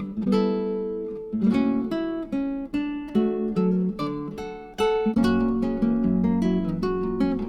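Background music: acoustic guitar plucked and strummed.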